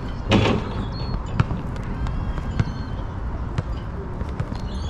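Quad roller skate wheels rolling on an outdoor court surface, a steady low rumble with scattered clicks and ticks. A short, loud scrape or thump comes about a third of a second in.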